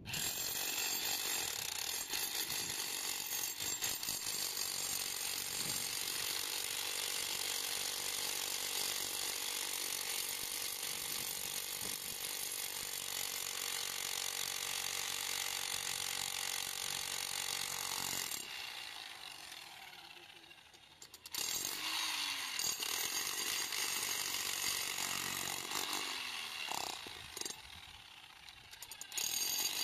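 Corded electric demolition hammer chiselling into a concrete slab, hammering steadily. It stops for a few seconds after about 18 seconds and again near the end, starting up each time.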